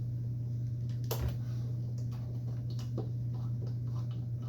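Small light clicks and clinks of handled screws and tool parts, one sharper click about a second in, over a steady low hum.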